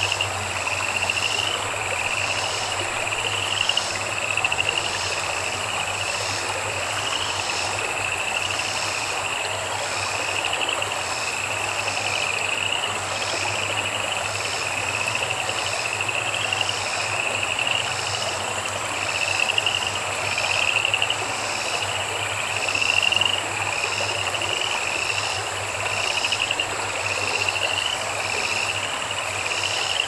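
Outdoor summer chorus of calling insects and frogs: a short trilled chirp repeats about once a second over a steady high-pitched buzz, with a low steady hum underneath.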